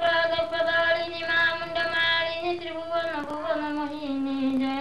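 A woman singing a slow melody in long held notes, her pitch stepping down about three seconds in.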